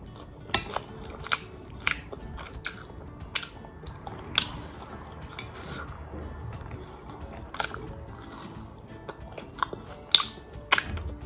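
Close-up eating sounds of a person chewing and slurping chicken chow mein noodles: sharp wet mouth smacks and clicks about once a second, the loudest near the end.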